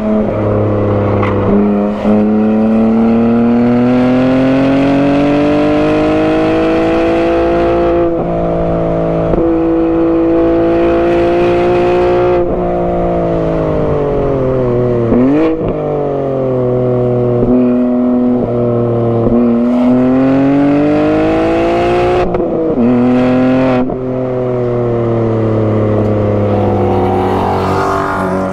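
BMW G80 M3's twin-turbo straight-six, breathing through a non-resonated single midpipe, driven hard on track: the revs climb steadily and drop sharply at gear changes on its manual gearbox, over and over, with one quick dip and jump in pitch about halfway through.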